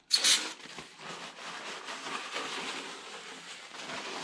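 Aerosol can of brake cleaner spraying onto a paper shop towel in one short hiss just after the start, then the towel rubbing and wiping across the engine block's deck and cylinder bores.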